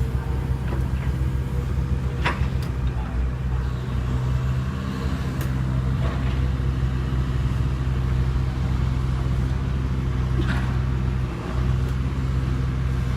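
Kobelco SK75UR excavator's diesel engine running steadily, with a few short sharp knocks, the clearest about two seconds in and again about ten seconds in.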